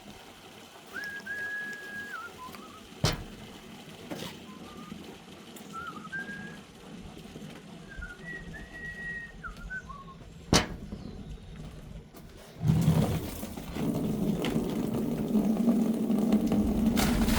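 A person whistling a tune in short held notes with slides between them, broken by a couple of sharp knocks. Near the end a steady rushing noise with a low hum starts up and carries on.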